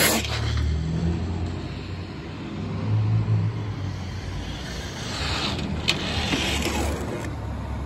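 A brief burst of noise at the very start as the brushless Traxxas TRX-4 RC truck passes close by. Then a passing car's tyre hiss swells and fades about five to seven seconds in, with a sharp click in the middle of it, over a steady low rumble.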